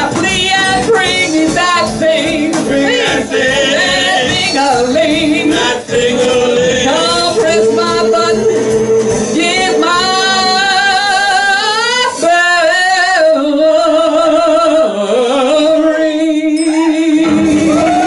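Live blues band with a woman singing into a handheld microphone, holding long notes with a wavering vibrato. In the second half the band's low end drops away for several seconds while she holds a long note, and it comes back near the end.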